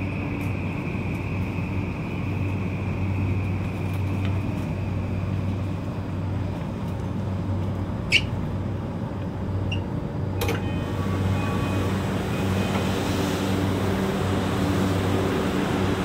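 Cabin sound of a Tokyu 3020 series commuter train at a station: a steady low hum of air conditioning and onboard equipment, with a faint high whine that fades out in the first few seconds. A sharp click comes about eight seconds in, then a knock about ten seconds in, after which the background noise grows fuller.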